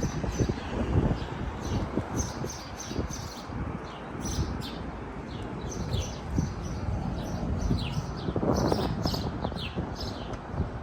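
Small birds chirping again and again in short, high, falling calls, over a constant low rumbling noise.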